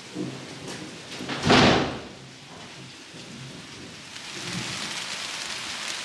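Rain falling with a sharp crack of thunder about a second and a half in. From about four seconds in, the rain settles into a steadier, louder hiss.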